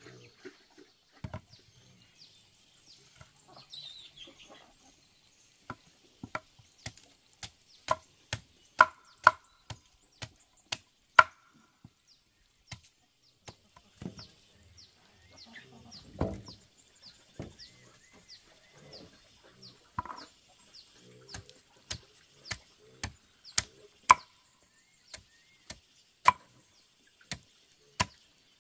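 Repeated chopping with a blade, sharp separate strikes about one a second and sometimes in quick pairs, with one heavier thud midway. A chicken clucks briefly near the start.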